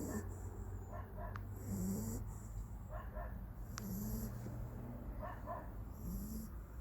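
A dog snoring in its sleep, a low snore roughly every two seconds.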